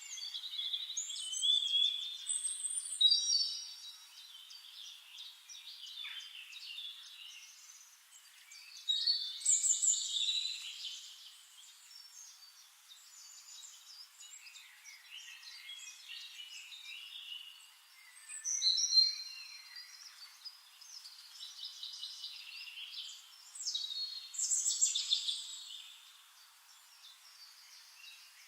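Songbirds singing: bright, high trilling and chirping phrases that swell up every several seconds, with quieter chirps in between.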